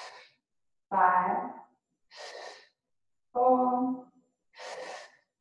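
A woman breathing close to the microphone, one hissy breath about every two and a half seconds. Her short spoken counts fall between the breaths and are louder than them.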